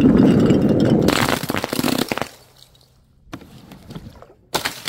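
Glass beer bottles rolling down a wooden plank with a low rumble, then crashing and shattering; the loudest part is a burst of breaking, crackling glass about a second in that lasts about a second. A sharp impact comes near the end.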